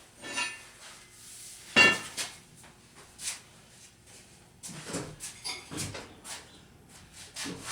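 Scattered knocks and clunks of metal parts being handled while a lathe is shifted, with one sharp metallic clank about two seconds in that rings briefly.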